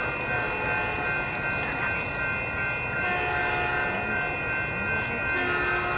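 Caltrain commuter train approaching in the distance and sounding its horn, over steady ringing from grade-crossing warning bells.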